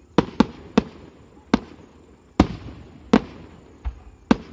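Aerial fireworks shells bursting in an irregular series of about eight sharp bangs, each trailing off in an echo.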